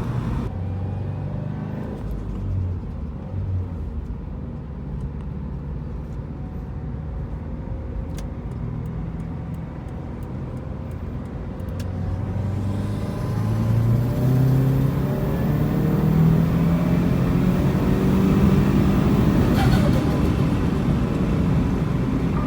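Turbocharged 2008 Subaru WRX flat-four engine with a VF52 turbo, running on the move: it pulls at lower revs in the first half, then climbs in pitch and gets louder about halfway through, and stays loud for several seconds under acceleration before easing off near the end.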